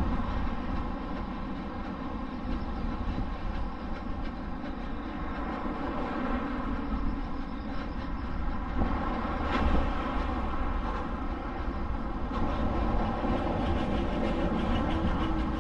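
Steady rumble of road traffic with a brief louder surge about nine to ten seconds in.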